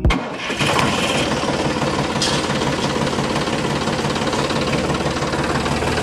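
A tractor engine running with a fast, even knocking chug at a steady level, starting and cutting off abruptly.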